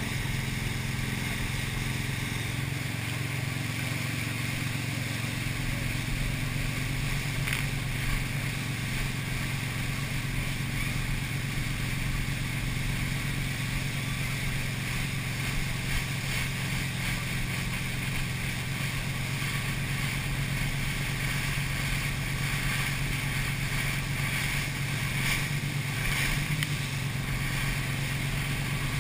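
Motorboat engine running steadily at speed while towing a tube, over the rush of its churning wake.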